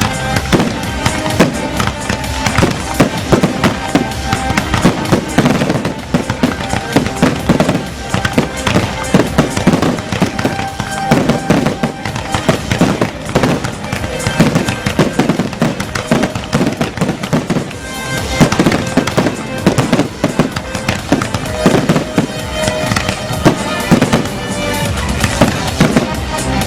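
A display of fireworks going off in quick succession, dense crackling and bangs, over loud accompanying music.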